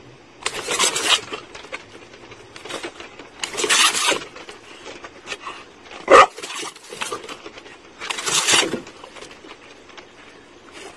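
Garden hose spray nozzle squirting water in three short hissing bursts, each about a second long and a few seconds apart, with one short sharp sound about six seconds in.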